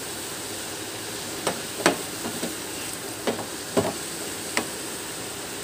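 Keema and cabbage filling sizzling steadily in a metal wok as it is fried dry of its liquid, with a wooden spatula stirring it and knocking against the pan about five times.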